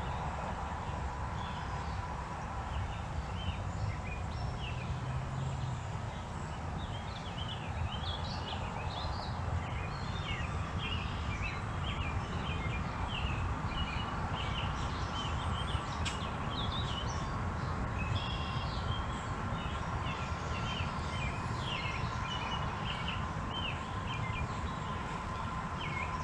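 Small birds chirping and twittering, many short calls throughout, over a steady low background noise with a faint continuous high tone.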